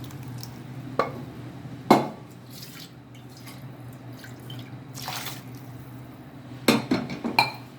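Cooked dal being poured into a pan of sambar: wet plops and drips, with several sharp knocks, the loudest about two seconds in and a quick cluster near the end.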